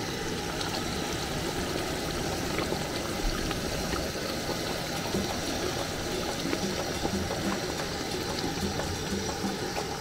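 Liquid pouring and splashing steadily.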